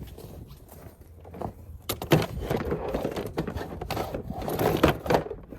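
Hard plastic Milwaukee Packout tool cases being handled and set onto the adapter plate: a run of irregular knocks and rattles, sparse at first and busy from about two seconds in.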